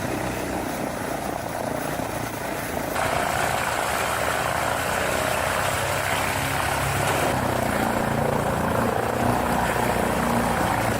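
Tractor-driven wood chipper running at work: a steady, rough mechanical drone of engine and chipper. The sound shifts abruptly about three seconds in and again about seven seconds in.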